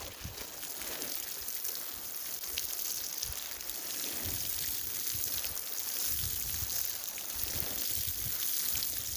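Water poured in a steady shower onto the soil of plastic nursery pots, splashing as it soaks into the earth.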